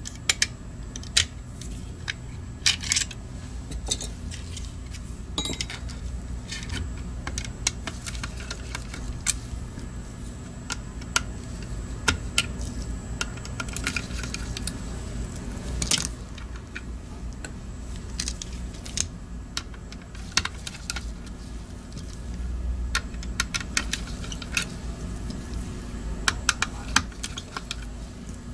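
Irregular sharp clicks and clacks of small plastic parts and metal hand tools (tweezers, a small screwdriver) as a Logitech G Pro Wireless mouse shell is taken apart, over a steady low hum.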